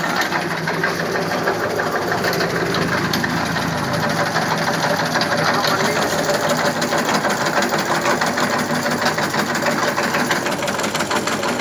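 Electric tobacco cutting machine running as raw tobacco is fed into it: a fast, steady mechanical clatter of chopping over a steady motor hum.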